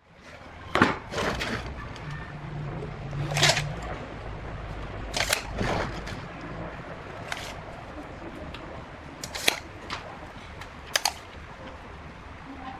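Separate sharp clicks and knocks, about eight of them at uneven intervals, with a short low hum a couple of seconds in.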